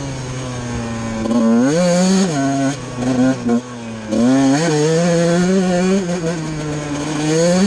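Enduro motorcycle engine being ridden hard, its pitch climbing and dropping with the throttle: it rises sharply about two seconds in, again about four seconds in, and once more near the end.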